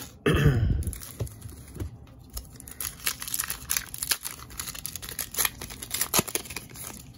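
Plastic cello-pack wrapper crinkling and trading cards being handled and slid through the hands, with a loud rustle about a third of a second in, then a run of short irregular crinkles and clicks.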